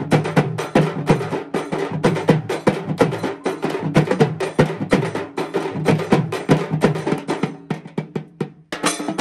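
Several large frame drums beaten together in a fast, dense rhythm, the drumming of a Tamil fire-walk ceremony. Near the end the beats thin to a few scattered strikes, stop for a moment, then start again.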